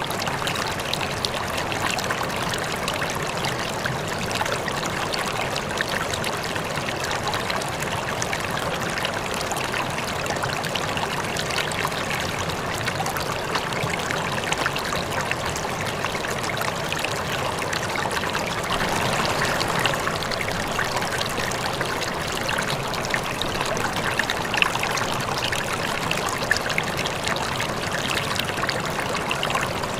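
Water falling and splashing steadily, a continuous rushing trickle of a small waterfall with fine droplet splashes.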